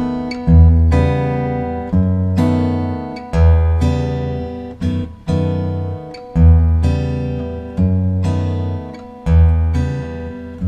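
Background music: acoustic guitar strumming chords, each chord struck sharply and left to ring and fade before the next, about every second or so.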